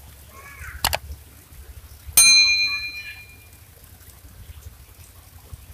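A single click, then about a second later a bright bell ding that rings out and fades over about a second: the sound effect of a YouTube subscribe-button animation, with the cursor clicking and the notification bell ringing.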